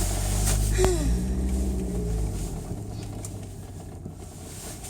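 Car engine starting up: a low rumble sets in with a click, rises and falls in pitch over about a second, then settles to a quieter idle.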